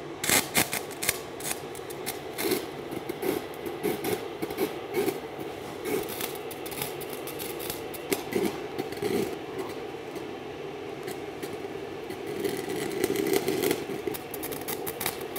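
Stick-welding arc, fed by two car batteries, crackling and spitting irregularly as the electrode is drawn across a steel plate, over a steady hum.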